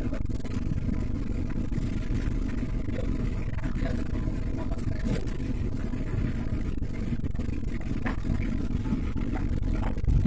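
Steady low road and engine rumble of a moving car, heard from inside the cabin, with a few faint knocks.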